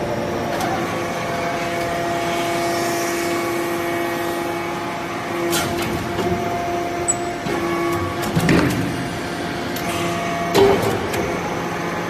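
Metal chip baler running, its hydraulic pump and motor giving a steady pitched hum, with a few sharp knocks in the second half.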